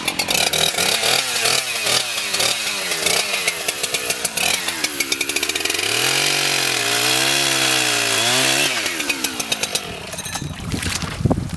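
Two-stroke chainsaw cutting into lake ice, the engine revving up and down under load, then easing off about nine seconds in.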